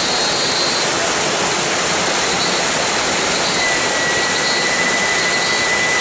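Waterfall crashing close by: a loud, steady roar of falling and splashing water.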